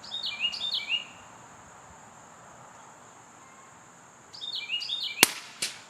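A songbird calls twice in short bursts of falling, stepped chirps. Near the end comes one sharp crack from the suppressed CZ 455's .22 LR shot, followed by a fainter click.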